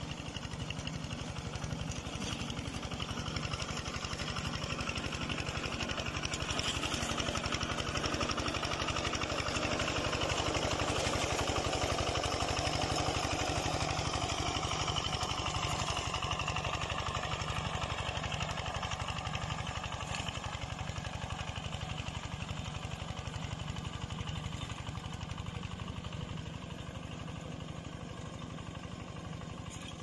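The water-cooled single-cylinder diesel engine of a walk-behind reaper-binder running steadily with a fast, even chug as the machine cuts grain. It is louder about a third of the way in and fades slightly near the end.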